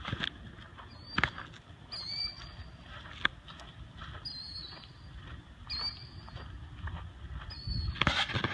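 A small animal's short, high chirp, repeated every second or two, over a low steady background noise. A few sharp clicks and a louder burst of noise come near the end.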